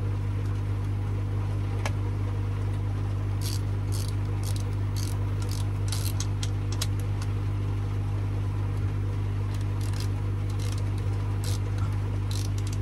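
A steady low electrical hum from running pond equipment, with scattered light clicks and taps of a socket being turned as nuts are tightened onto bolts of the slide valve's pump fitting.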